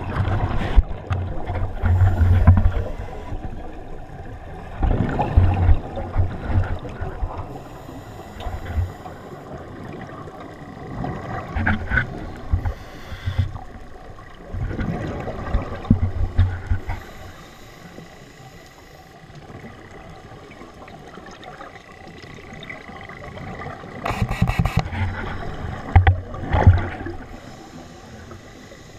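Scuba diver's regulator underwater: exhaled bubbles gurgle out in bursts every few seconds, with quieter stretches of inhaling between.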